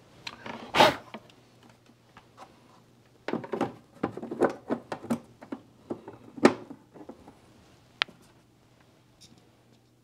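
Plastic knocking and clattering as the white plastic fan housing of a Zehnder ComfoAir 200 heat recovery ventilator is handled and fitted back into the unit. There is one loud knock about a second in, a run of irregular knocks from about three to seven seconds, and a single sharp click about eight seconds in.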